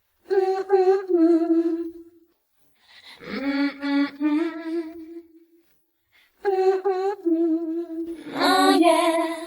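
A solo voice humming three wordless phrases, unaccompanied, each about two seconds long with short pauses between; the last glides up to a higher note near its end.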